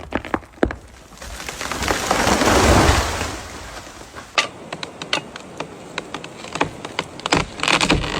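A tree falling: sharp cracks of wood, then a rushing crash of trunk and branches that swells and dies away about two to three seconds in, followed by scattered snaps.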